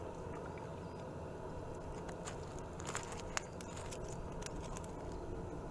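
Irregular light clicks and ticks, with one sharper click about midway, from a Penn Pursuit 3000 spinning rod and reel being handled. Under them is a steady low rumble.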